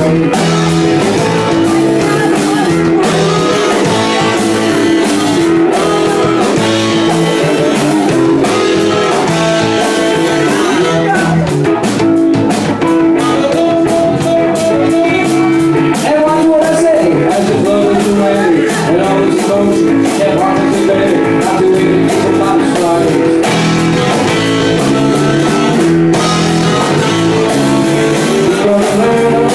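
Live blues-rock band playing loud and steady: electric guitar and drums, with a saxophone.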